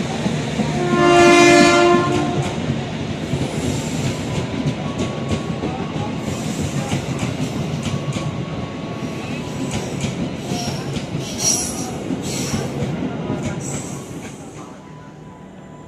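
Passenger train coaches rolling past a station platform, wheels clacking over the rail joints, with one horn blast about a second in. The rumble fades near the end.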